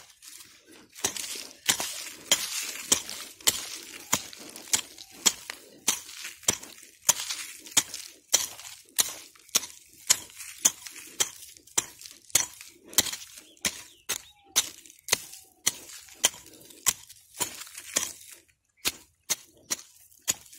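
A small hand digging pick chopping repeatedly into dry, stony soil: a steady rhythm of sharp, gritty strikes, a little under two a second, as the ground over a metal detector signal is broken open.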